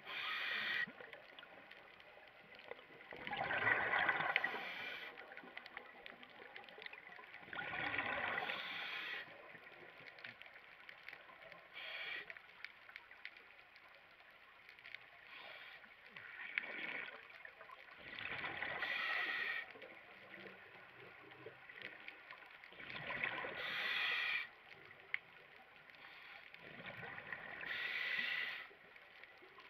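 Scuba diver's regulator breathing underwater: a bubbling exhalation about every four seconds, each lasting a second or so, with a quieter hiss between breaths.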